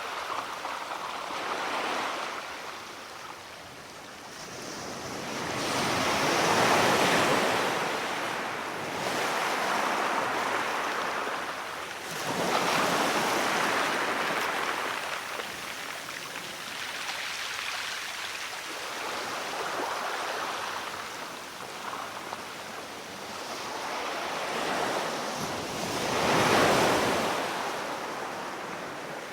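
Sea surf: waves breaking and washing on the shore in slow swells of rushing noise, each rising and falling over several seconds, the loudest near the end.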